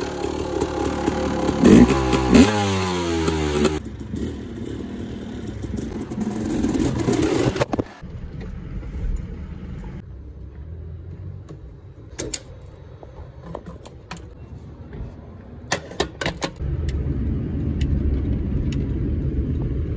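Yamaha YZ250 two-stroke dirt bike engine running and being revved, its pitch rising and falling a few times in the first several seconds. After it cuts off there are quieter scattered clicks and knocks, and near the end the steady low drone of a vehicle driving, heard from inside the cabin.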